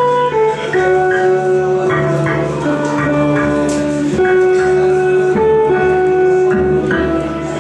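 Live jazz band playing an instrumental tune, guitar to the fore over bass and drums, with long held melody notes.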